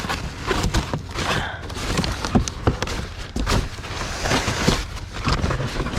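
Scrap being handled and shifted about: an irregular run of knocks, clunks and scrapes.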